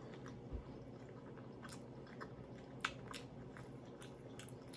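A person chewing food close to the microphone, faint, with scattered short wet mouth clicks and smacks, the sharpest a little under three seconds in.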